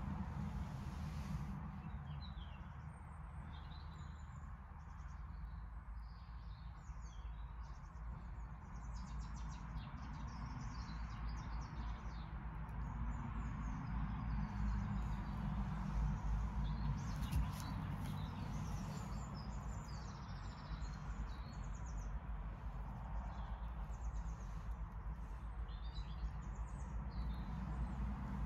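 Small birds chirping on and off in the background, over a steady low rumble.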